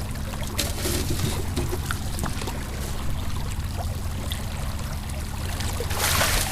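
Water splashing and sloshing at the side of a boat as a hooked striped bass is brought alongside, with a louder splash near the end. A low steady hum runs underneath.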